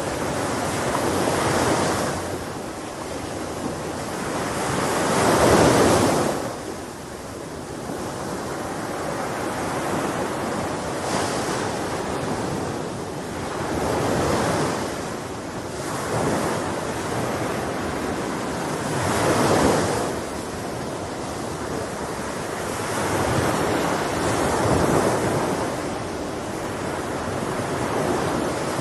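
Sea waves washing onto a shore, the surf swelling and falling back every few seconds, the largest surge about five seconds in.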